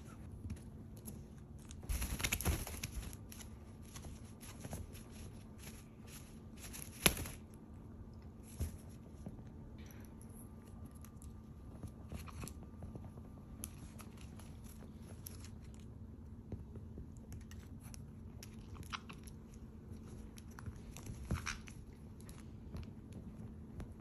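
Caique parrots biting and gnawing on a wooden chopstick: scattered small clicks and crunches, with a louder burst about two seconds in and a sharp click about seven seconds in.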